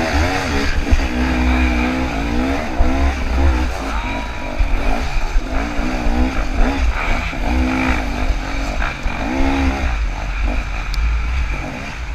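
A KTM 300 two-stroke dirt bike engine being revved hard and backed off over and over, its pitch rising and falling, heard from a camera mounted on the bike with a heavy low rumble on the microphone.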